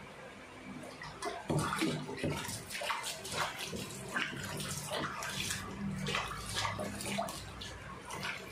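Water splashing in a stainless steel sink as a Siamese cat is wet and washed by hand, in irregular splashes.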